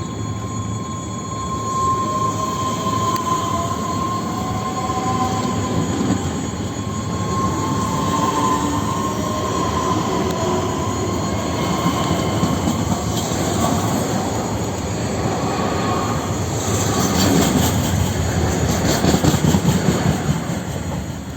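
An EG2Tv Ivolga 2.0 electric train running on the rails, with squealing wheel tones that glide slowly in pitch. Near the end it grows loudest with a fast run of wheel clacks, then falls away.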